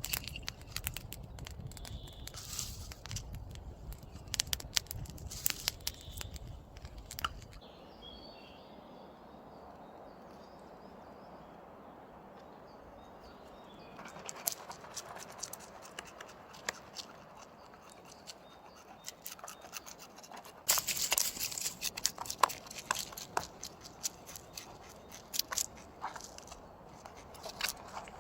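Irregular crunching and crackling of dry leaves and twigs, thinning out to a quieter stretch with faint bird chirps in the middle, then coming back loud and dense near the end.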